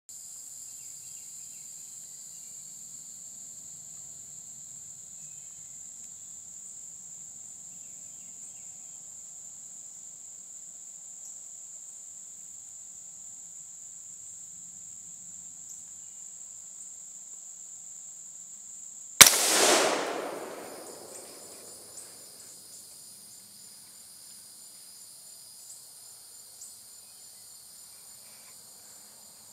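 A single shot from an AR-style rifle in .223/5.56 about two-thirds of the way through, a sharp crack followed by a rolling echo that dies away over about two seconds. Behind it a steady, high-pitched chorus of night insects such as crickets runs throughout and is quieter after the shot.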